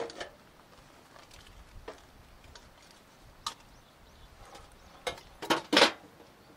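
Objects knocking and clinking against a sheet-metal storage tin as they are taken out: a few single light knocks, then a quick cluster of three louder knocks near the end.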